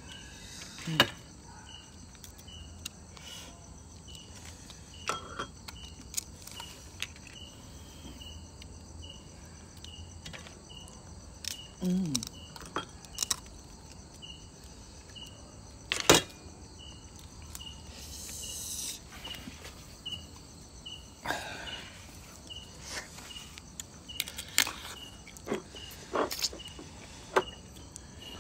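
An insect chirping steadily, one short high chirp repeated at even spacing. Over it come scattered sharp cracks and clicks, the loudest about a second in and near the middle.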